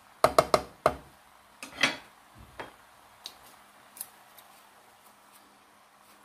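A cooking utensil knocking against a pot: four quick sharp taps, then a short scrape, then a few faint ticks.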